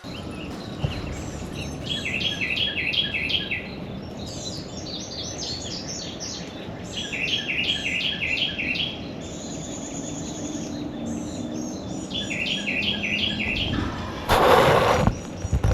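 A songbird singing three bouts of rapid, repeated short notes, about five a second, with a brief high, steady note from another bird between them, over a steady low background. About a second before the end comes a loud, brief rushing burst.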